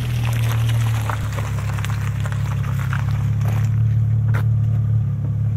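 Audi allroad idling with its muffler removed: a steady, low exhaust drone at the tailpipe.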